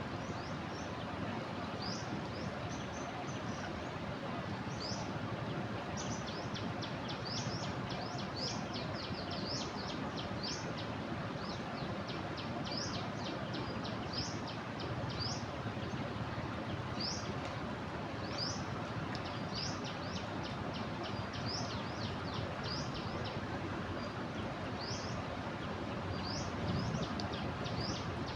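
Steady rush of a flooded river, with small birds chirping repeatedly over it in short, high, falling notes.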